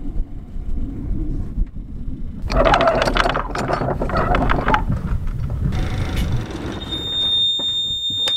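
Solé Diesel inboard engine running with a steady low rumble. About seven seconds in, a steady high-pitched buzzer from the engine control panel sounds as the key is turned.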